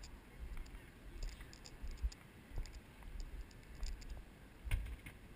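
Low, gusty rumble of wind on a GoPro microphone, with scattered light clicks throughout and a stronger gust and click near the end.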